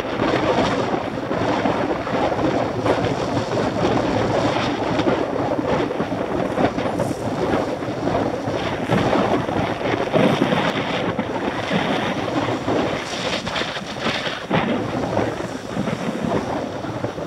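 Wind rushing over the microphone while riding a mountain bike along a paved road: a steady, loud rumbling hiss that swells and dips unevenly, with no other distinct event standing out.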